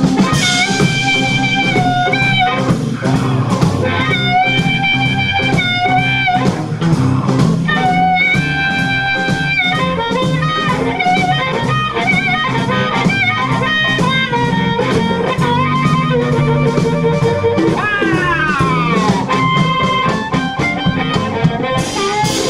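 Live blues band: an amplified harmonica plays a solo in phrases of long held and bent notes, one sliding down near the end, over electric guitar, keyboard, double bass and drums.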